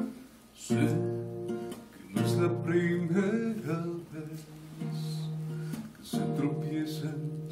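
Acoustic guitar strumming chords, a new chord struck about every one to two seconds, in an instrumental passage of a song.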